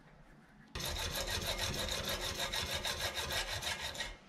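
Hacksaw cutting a brass rod clamped in a bench vise: rapid, even back-and-forth strokes that start about a second in and stop abruptly near the end.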